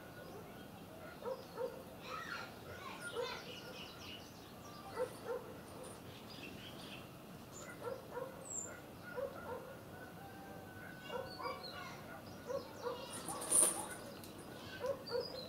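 Squirrel gnawing at a walnut shell: short crunches at irregular intervals, often in pairs, with one louder sharp noise about three quarters through.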